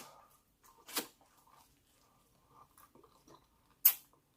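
Close-miked chewing of food, quiet and wet, with two sharp clicks: one about a second in and a louder one near the end.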